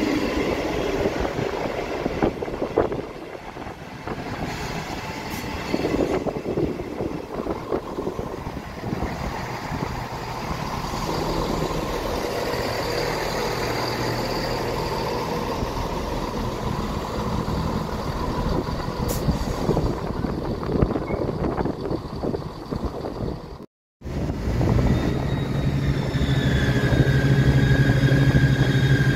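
ScotRail diesel multiple units: one runs along the platform with wheel-on-rail noise and its diesel engine running, then after a sudden cut near the end, a second unit's diesel engines run louder and steadier, with a couple of high steady tones over them.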